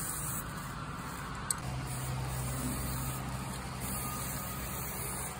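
Aerosol spray paint hissing in on-and-off bursts onto a foil survival blanket, over a steady low hum.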